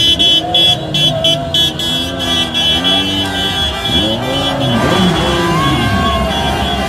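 Car horns honking in quick repeated beeps for the first couple of seconds, over engines revving up and down and a shouting crowd.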